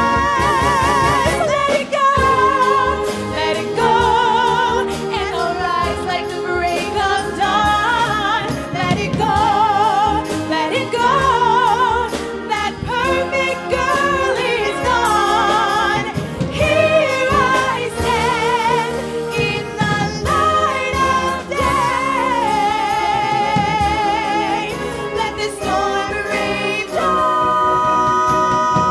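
Live concert band playing, with a vocalist singing the melody above it in a wavering vibrato.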